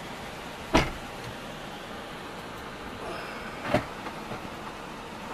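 Two sharp knocks about three seconds apart, the first the louder, over steady background noise inside a vehicle.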